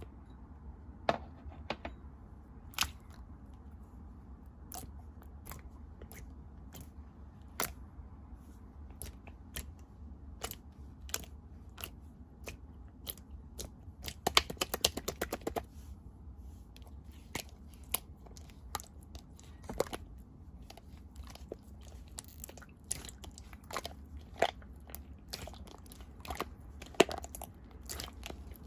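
Clear slime being squeezed and pressed by hand, giving scattered sharp clicks and pops, with a quick run of pops about halfway through.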